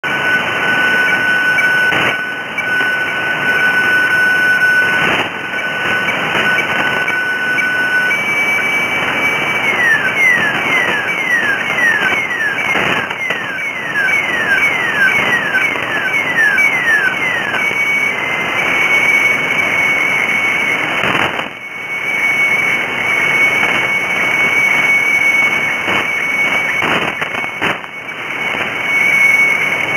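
Shortwave receiver audio of the Bangkok HSW64 weather-fax (radiofax) broadcast on 7395 kHz: steady band hiss under a fax tone. The tone holds at a lower pitch, then steps higher about eight seconds in. A run of about a dozen quick falling chirps follows, then a steady high tone, with static crackles now and then.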